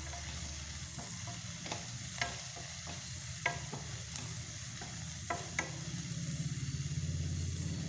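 Chopped okra and green chillies sizzling in coconut oil in a stainless steel pan while being stirred, with several sharp taps and scrapes of the spatula against the pan.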